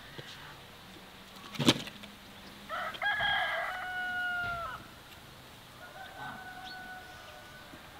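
A rooster crowing: one long crow of about two seconds, starting near three seconds in, then a fainter crow near the end. A single sharp knock comes just before the first crow.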